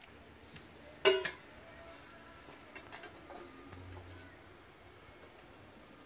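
A single short, ringing clink of a hard object about a second in. Then quiet outdoor ambience with a few faint bird chirps near the end.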